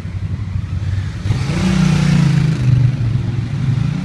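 Motorcycle engine accelerating past close by: its pitch rises about a second and a half in, then falls as it goes on, over the steady low running of a car engine.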